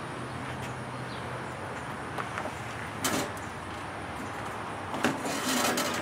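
A few scattered metal knocks and clicks from handling the open metal smoker cabinet, the loudest about three seconds in, and a short rattling clatter near the end, over a steady background hiss.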